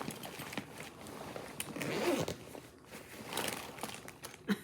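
Zipper on a go bag's top compartment being pulled open, a rasping run with a couple of louder pulls and a sharp click near the end.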